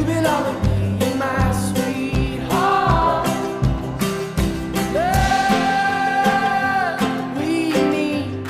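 Background pop song with a sung vocal over a steady drum beat; the singer holds one long note for about two seconds in the second half.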